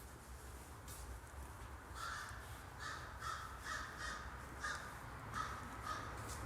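A bird calling outside, a run of about eight short calls at roughly two a second, starting about two seconds in, faint against a steady low background hum.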